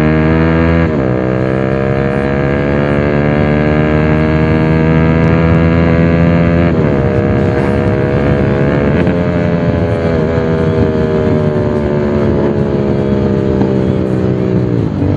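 Bajaj Pulsar 220's single-cylinder engine through an SC Project aftermarket exhaust, accelerating hard through the gears. The engine note climbs, drops sharply at an upshift about a second in and again near seven seconds, then climbs slowly before falling near the end.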